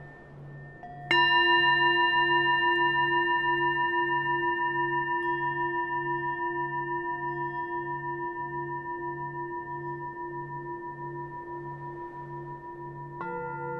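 Ambient background music: a bell-like tone is struck about a second in and rings on, slowly fading, over a low tone pulsing about twice a second. A new bell-like chord is struck near the end.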